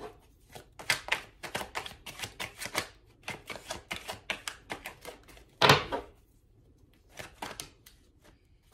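Deck of tarot cards shuffled by hand: a quick run of sharp clicks as the cards slap together, with one louder knock about six seconds in and a few more clicks before it stops near the end.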